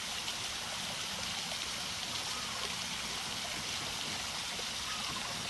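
Water falling steadily from a small artificial rock waterfall into a pool, an even, continuous splashing.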